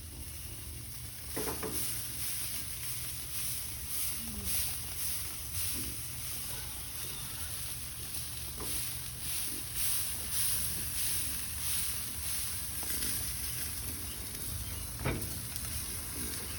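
Hamburger patties sizzling on a hot grill, a steady hiss that swells and fades, over a low steady rumble. A couple of short knocks come near the start and near the end.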